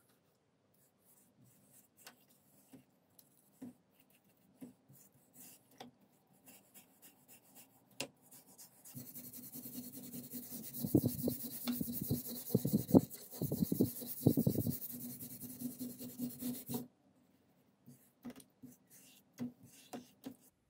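Bristle paintbrush scrubbing a rusty steel axe head in a plastic tub of liquid. There are light scattered brushing ticks at first. From about 9 to 17 seconds come firmer back-and-forth scrubbing strokes with a steady hiss, and it returns to faint ticks near the end.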